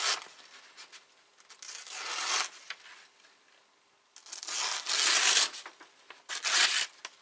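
A sheet of paper being sliced with the carpentry-sharpened edge of a Plotnik No.2 axe: several separate slicing strokes, each a rustling hiss of a second or less, the longest about two-thirds of the way in. It is a paper test of the edge after the hemp-rope cutting test, and the edge still cuts.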